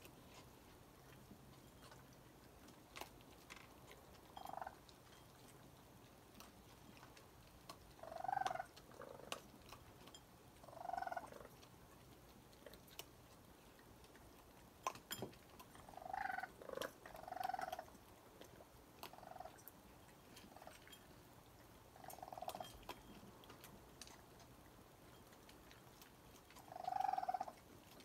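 Raccoons chirping: short, high calls repeated about ten times at irregular intervals, coming in quick runs after about 16 seconds and near the end, over faint scattered clicks.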